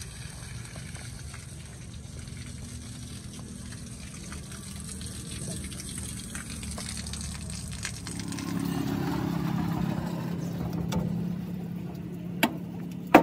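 Coolant water draining out of the Bedford truck's radiator and splashing onto the ground, louder for a couple of seconds from about 8 s in, over a steady low hum. Two sharp metallic clinks near the end.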